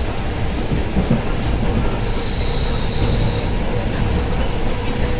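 Passenger train running on the rails, heard from inside the car: a steady low rumble of wheels on track, with a faint high squeal that comes in for about a second midway and again near the end.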